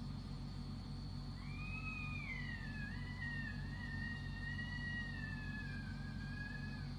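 One long, high, wavering scream, of unknown origin, starting about a second in: it rises at the start, then wavers and slowly sinks in pitch for about five and a half seconds before breaking off near the end. A steady low hum and a thin steady high tone run underneath.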